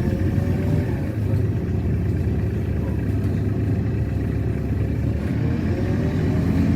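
A LiAZ-6213.65 articulated bus's diesel engine and road noise heard from inside the cabin: a steady low rumble. A faint rising engine whine comes about half a second in and again near the end as the bus pulls away.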